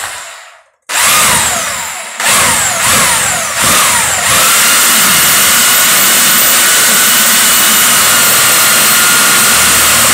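Corded Bosch drill spinning a paint-mixing paddle in thick white primer to stir up the settled paint. It gives a few short trigger pulses, each whine falling away as the motor slows, then from about four seconds in it is held at full speed with a steady high whine.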